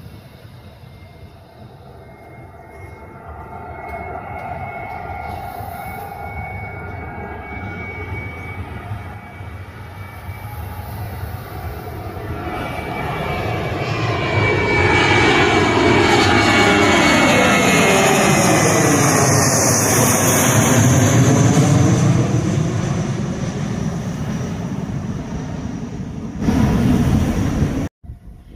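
Jet airliner passing close by: its engine noise builds steadily, peaks, and falls in pitch as it goes past, then fades. The sound cuts off suddenly near the end.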